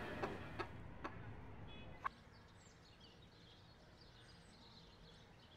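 Quiet room tone with a few soft clicks and one sharp click about two seconds in, followed by faint high chirping of small birds.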